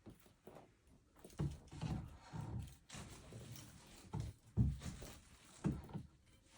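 Irregular thumps and knocks with shuffling and rustling as a person hauls himself from a wheelchair back into bed, the heaviest bumps about a second and a half in, around four and a half seconds in, and near the end.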